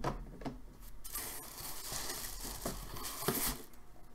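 Paper packing rustling and crinkling as a plastic puck display cube is pulled out and handled, with a few light clicks at first and a longer rustle from about a second in, which fades near the end.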